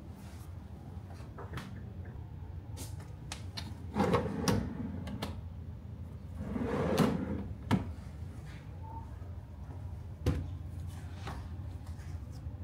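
A few knocks and clunks, like doors or fittings being handled, over a steady low hum. The loudest come about four and seven seconds in, with a sharper one near the end.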